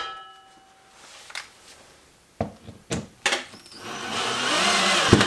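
A few light knocks and taps, then a power drill/driver runs steadily for about a second and a half and stops with a sharp knock.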